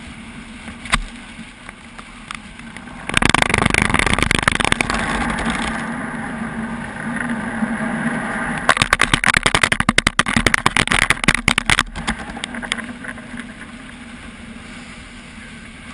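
Car wash sounds over a steady machine hum. A sudden burst of spraying water against the car starts about three seconds in. Around the middle comes a spell of rapid hits.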